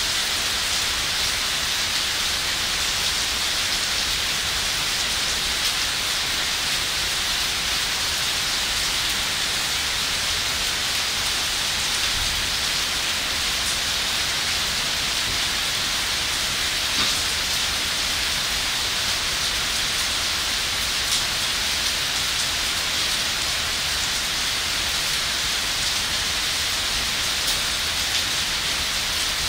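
Heavy rain pouring steadily onto leaves and foliage, an even hiss with a few faint taps.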